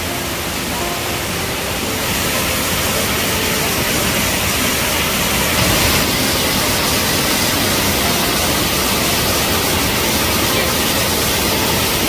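Multi-tier waterfall cascading over rock into a plunge pool: a steady, full rush of falling water that gets a little louder about two seconds in and again around six seconds.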